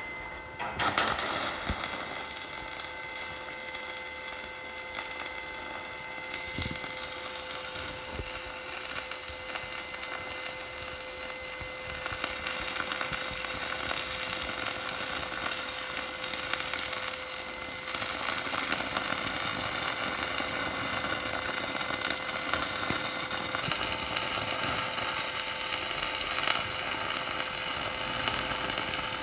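Electric arc welding: the arc crackles and sizzles steadily as a bead is laid, starting about a second in and stopping just before the end.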